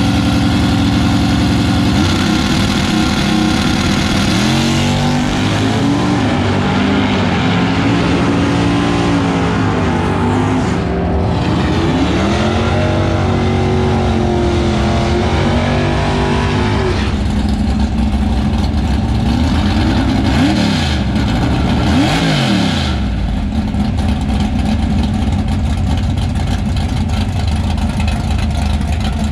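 Drag-racing car engine running loud throughout. It starts as a steady rumble, then revs with the pitch climbing and dropping in steps through the middle. A couple of quick falling sweeps come late on before it settles back to a steady run.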